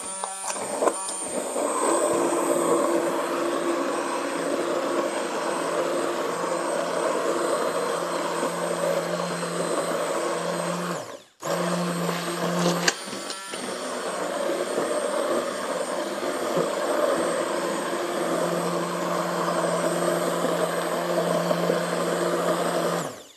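A 1200 W handheld immersion blender running steadily, its blades puréeing a thick vegetable soup in a pot, with a low hum and a high whine. It cuts off for a moment about halfway, then starts again and runs on.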